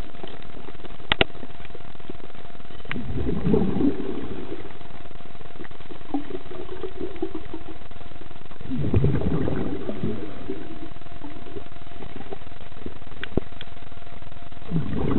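Scuba diver's exhaled bubbles rumbling out of the regulator three times, about five to six seconds apart, in step with breathing, heard underwater over a steady hiss and a faint constant hum. A couple of sharp clicks come in between.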